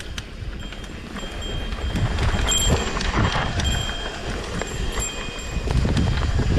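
Mountain bike rattling and clattering over a rough single-track trail, irregular knocks and clicks from the frame and chain, with wind rumble on the microphone.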